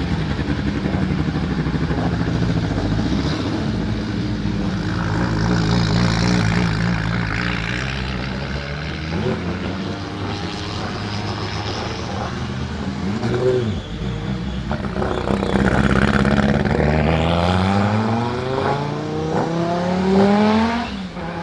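Audi 200 Quattro Trans-Am race car's turbocharged 2.1-litre five-cylinder engine running hard. The pitch rises and falls briefly twice, then climbs in one long acceleration in the last few seconds before dropping off suddenly as the throttle closes.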